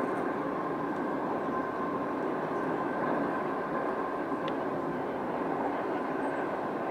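Double-stack intermodal freight train's well cars rolling steadily across a girder bridge: an even rumble of wheels on rail.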